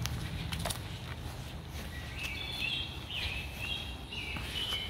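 Woodland birds chirping and calling in short repeated notes over a steady low rumble, with a couple of faint crackles of footsteps on dry leaf litter early on.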